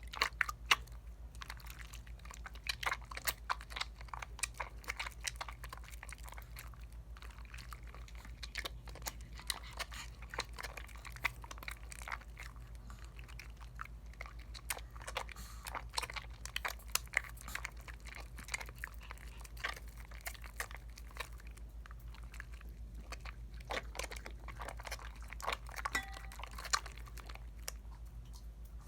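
Lather of a Dial coconut bar soap being worked between wet hands: close, irregular squishy crackles and popping bubbles, over a steady low hum.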